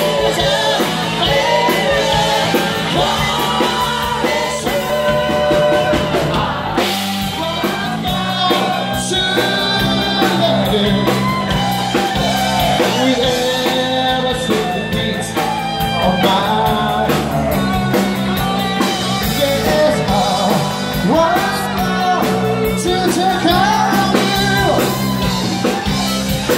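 Live rock band performing: a lead singer over drums and guitar, loud and continuous.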